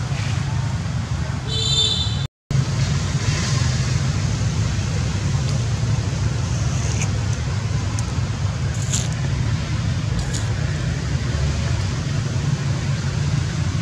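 Steady low outdoor rumble, like distant traffic, with a short high chirp about one and a half seconds in; the sound cuts out for a moment about two seconds in.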